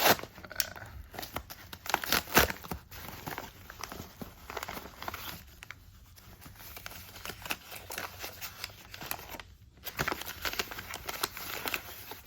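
Lighter packaging being torn open and unwrapped by hand: irregular crinkling, tearing and rustling, with scattered sharp clicks.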